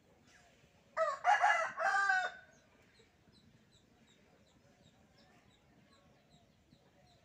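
A rooster crows once: a single loud call of about a second and a half, starting about a second in. Faint chirps of small birds sound throughout.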